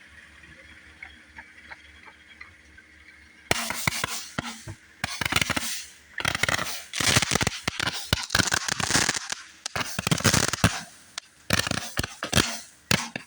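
Fireworks going off in rapid crackling, popping runs, starting about three and a half seconds in and coming in several bursts with short pauses between them.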